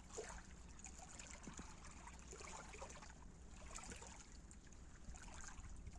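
Faint water lapping and trickling at the lake shore, barely above near silence, with a few soft scattered clicks.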